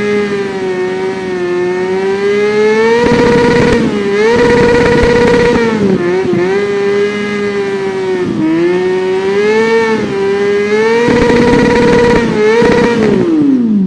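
Kawasaki Ninja 400 parallel-twin engine revving high and loud. Its pitch wavers and dips briefly several times, then falls away steeply at the very end.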